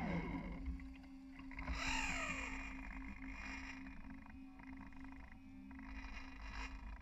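A model RC boat's electric drive winds down in pitch as it slows, then runs on as a low steady hum over water noise against the hull. A brief whine sweeps down in pitch about two seconds in.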